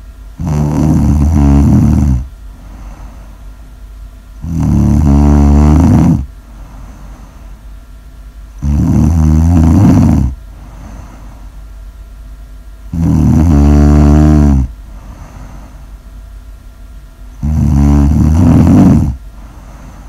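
A sleeping person snoring loudly: five long, pitched snores, each about one and a half to two seconds, coming at an even rhythm roughly every four seconds.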